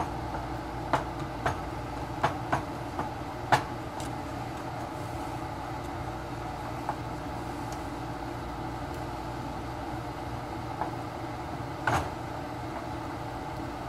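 A wooden spoon stirring melting sugar into caramel in a metal pot. It taps sharply against the pot several times in the first few seconds and once more near the end, over a steady low hum.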